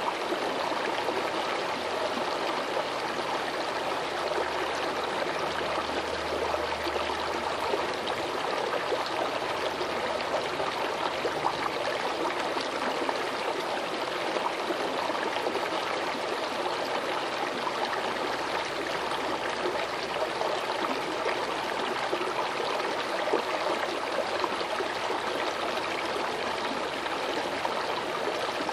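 Small stream flowing steadily, a continuous rush and trickle of running water.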